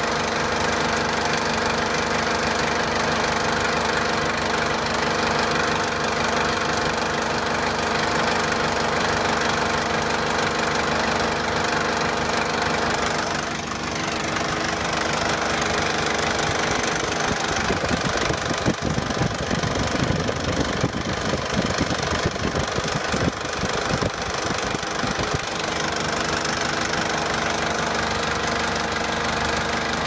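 Perkins 1104C-44 four-cylinder diesel engine of a JCB 212S backhoe idling steadily. It is running again now that the weak electric fuel lift pump, which could not hold prime, has been replaced.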